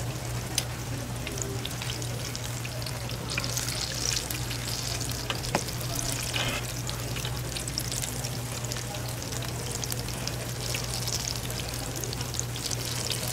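Battered food deep-frying in hot oil: a steady sizzle full of fine crackles and pops, over a steady low hum. A couple of sharper clicks stand out.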